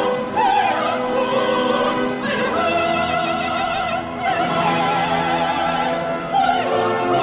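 Background music: operatic singing with a strong vibrato over an orchestra.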